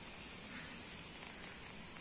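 Faint steady hiss with no distinct sounds in it.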